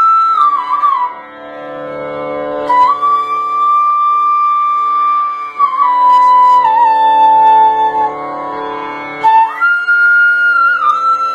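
Bamboo transverse flute (bansuri) playing a slow melody of long held notes joined by short slides. The line steps down in pitch through the middle and leaps back up near the end.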